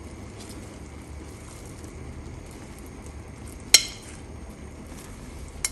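Tomato-chipotle broth boiling in a clay cazuela, a steady bubbling hiss. One sharp clink a little under four seconds in and a smaller one near the end, as rice patties are added with tongs.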